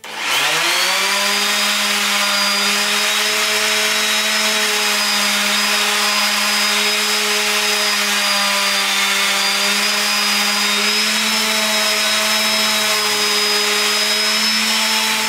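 Electric random orbital sander starting up, spinning up over about a second, then running steadily with a constant hum while sanding a wooden rifle stock and its rubber recoil pad with fine paper to smooth the joint.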